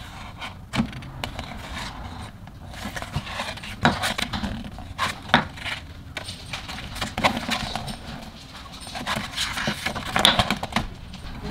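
Pages of a hardcover photobook being turned by hand: paper rustling, with several sharp flicks and taps as pages are separated, lifted and laid flat.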